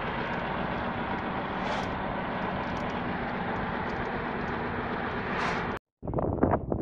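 Steady road and engine noise heard inside the cabin of a 2014 Ford Econoline E-250 van driving on a paved road. It cuts off abruptly near the end, and gusty wind buffeting the microphone follows.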